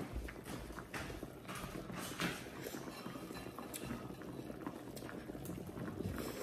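Electric hotpot-grill cooking at the table: the broth in the centre pot bubbling and the food on the grill plate sizzling in a steady, irregular crackle, with occasional light clinks and scrapes of a knife and fork on a plate.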